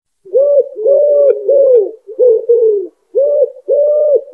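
Common wood pigeon singing its cooing song: a phrase of low coos, the second note drawn out longer than the rest. After a short pause about three seconds in, the phrase starts again.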